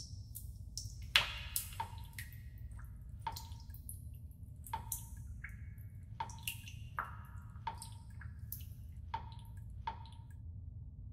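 Water dripping from a bathroom faucet into the sink: about a dozen single drops, roughly one every second or less, each a short tick with a brief ring, over a low steady hum.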